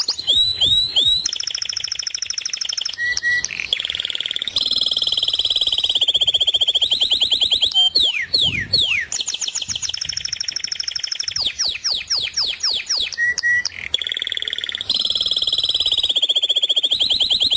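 A songbird singing a long, loud run of rapid trills: each phrase is a fast string of one repeated note, switching to a new note every second or two, with a few quick falling sweeps in the middle.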